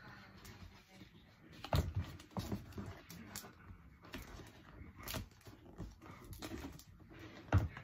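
Quiet rustling and crinkling of packaging being opened by hand, a small advent calendar gift unwrapped in a scatter of short crackles and clicks.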